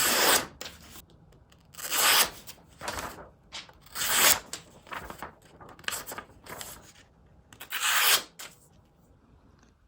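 Knife blade with a VG10 core drawn through material in a sharpness test, pressed harder into the cut: a series of scraping, tearing slicing strokes, the strongest about two seconds apart with lighter ones between.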